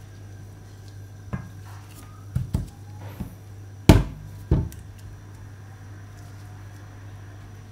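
Stainless steel bowl and pastry brush handled on a table: a handful of short knocks and clunks, the loudest about four seconds in, over a steady low hum.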